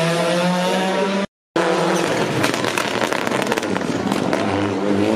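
Rally car engines at full throttle. The first accelerates with rising pitch and is cut off abruptly about a second in. After a brief silence a second car passes with a rapid string of sharp crackling pops, then its engine climbs in pitch again as it accelerates away near the end.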